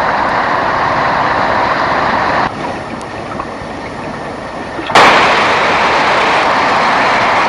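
Water rushing through opened reservoir spill gates, a steady roar. It drops in level about two and a half seconds in and comes back loud and sudden at about five seconds, as the footage cuts between shots.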